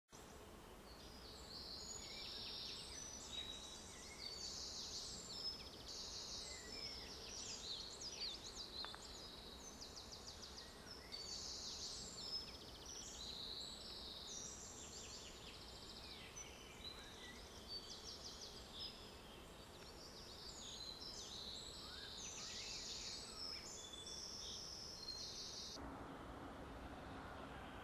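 Faint woodland birdsong: many high, thin songs and trills from several small birds overlapping continuously over a low hiss. Near the end the birdsong breaks off and a faint low steady hum remains.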